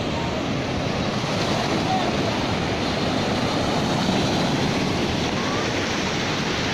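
Ocean surf breaking and washing up the beach, a steady rush of waves, with wind on the microphone.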